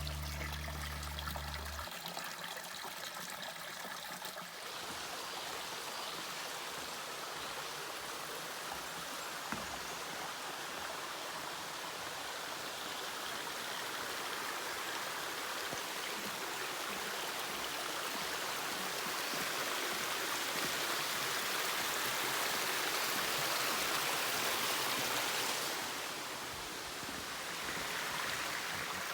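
Rainforest creek water running and trickling steadily. Music fades out in the first few seconds.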